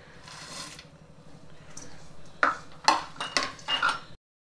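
A short soft rustle as chopped nuts are tipped into a stainless steel bowl. About two seconds in, a metal spatula starts scraping and clinking against the bowl several times, stirring them into the melted chocolate.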